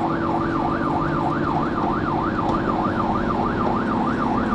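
Fire engine's electronic siren on a fast yelp, sweeping up and down about four times a second, heard from inside the cab of the Mercedes Atego truck, with its diesel engine running underneath.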